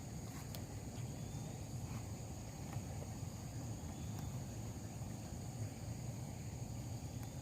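Steady high-pitched drone of insects, crickets or similar, over a constant low rumble, with a few faint clicks.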